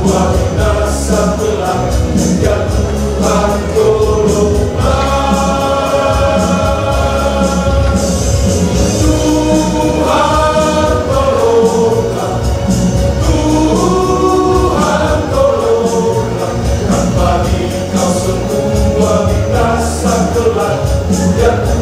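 Church choir singing a sacred song in several parts, with long held chords.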